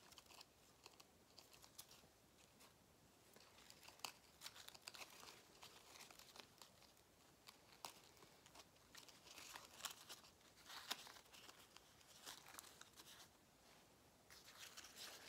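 Faint rustling and crinkling of artificial leaf stems being pushed into a moss-covered wreath, in scattered clusters that are busiest about four to five seconds in and again around ten seconds in.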